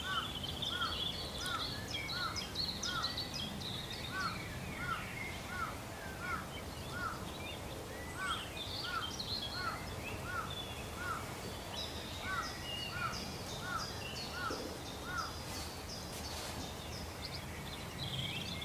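Wild birds calling: one repeats a short hooked note about three times a second in long runs, while others chirp higher and faster over a steady low background noise.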